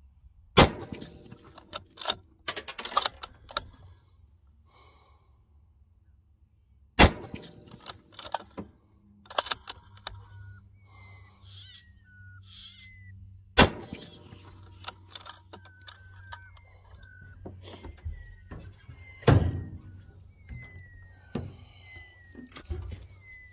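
Three unsuppressed shots from a 22BR bolt-action rifle, about six and a half seconds apart, each followed by clicks and clacks as the bolt is worked. A lighter knock comes later, and a bird chirps in short falling notes during the second half.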